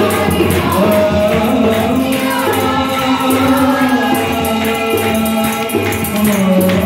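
Punjabi Christian worship song: a male lead and a group of women singing together, with a harmonium and hand-played barrel drums keeping a steady beat.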